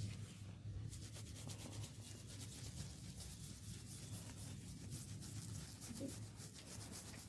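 Hands rubbing briskly through oiled hair and scalp during a head massage, a quick run of rubbing strokes, several a second, starting about a second in.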